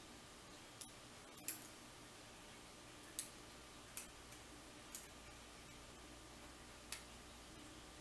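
Faint, sharp metal clicks, about six, spaced unevenly, from a lock pick working the pins of a KW1-keyway pin tumbler lock cylinder held under tension during single-pin picking.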